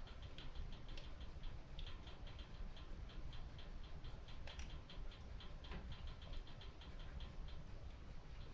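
Wood fire burning in a stone fireplace: a quick, irregular run of small crackling ticks, several a second, with a few sharper pops, over a low steady rumble.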